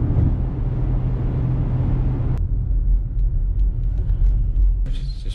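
Car cabin road noise: a steady low rumble of tyres and engine at highway speed, which cuts off suddenly about two seconds in to a quieter low rumble of slow driving with a few faint ticks. A hiss comes in near the end.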